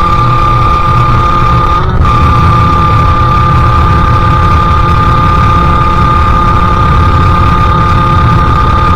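Sherco SM-R 50's 50cc two-stroke engine with a KRM exhaust running at steady high revs on the move, with wind rumble on the microphone. The note wavers briefly about two seconds in, then holds steady again.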